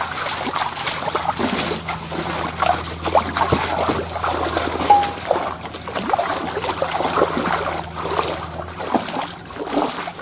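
Shallow stream water trickling, with irregular splashing and sloshing of feet wading through it.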